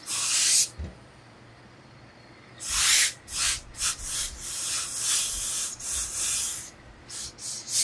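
Hose-fed steam iron pressing suit trousers: hissing blasts of steam and the soleplate rubbing over the cloth. A short burst at the start, a pause, a longer stretch of hiss from about two and a half seconds in, then a few short puffs near the end.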